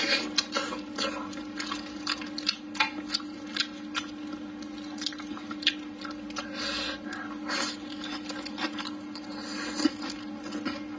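Close-miked chewing, lip-smacking and wet mouth clicks as a person eats braised pork trotter with rice and then bites into a green chili, the clicks coming in an irregular run throughout. A steady hum sits underneath.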